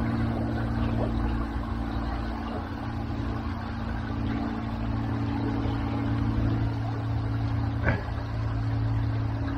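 A steady low drone, engine-like, holding constant pitch over a continuous rushing noise, with a single sharp click about eight seconds in.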